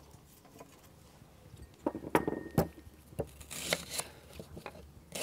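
A few sharp knocks on a wooden table and board, then a kitchen knife cutting an onion on a wooden chopping board with short scraping strokes.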